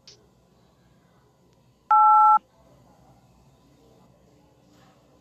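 A loud half-second two-tone beep, a telephone keypad (DTMF) tone with the pitch pair of the '8' key, about two seconds in.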